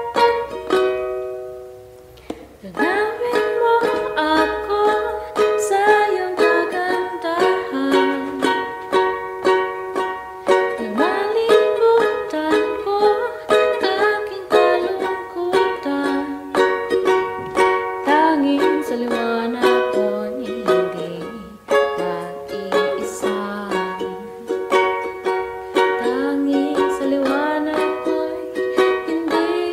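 Ukulele, capoed at the sixth fret, strummed in a steady chord progression. The strumming dies away briefly about two seconds in, then picks up again.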